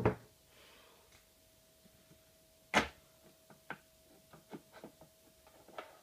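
A single sharp knock, then a run of small plastic clicks and knocks as a Nescafé Dolce Gusto pod machine's lever and capsule holder are handled. A faint steady hum runs underneath.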